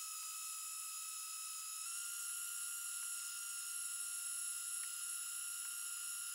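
Metal lathe taking a roughing cut along a mild steel bar with a high-speed steel tool under power feed: a steady high-pitched whine that steps up slightly in pitch about two seconds in.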